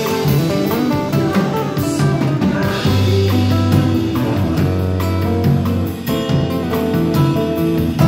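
Amplified nylon-string electro-acoustic guitar being plucked in a band arrangement, over a sustained low bass line and light drums.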